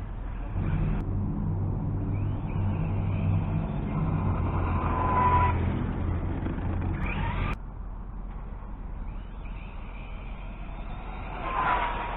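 Electric RC cars on a drag run: short motor whines as they pass, over a steady low engine hum that cuts off abruptly about seven and a half seconds in, with a second whine near the end.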